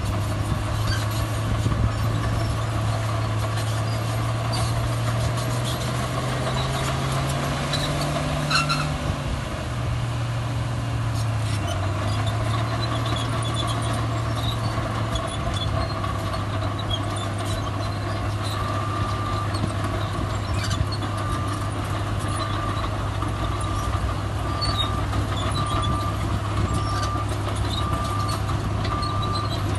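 Heavy diesel earthmoving machinery running steadily, with the engine revving up and dropping back a little under halfway through. A reversing alarm beeps about once a second through the second half.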